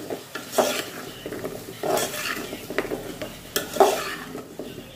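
Metal spoon stirring and scraping drumstick pieces, onion and tomato around a metal pot as they sauté, with oil sizzling under it. The scrapes come irregularly, several a few times in, the loudest a little before four seconds in.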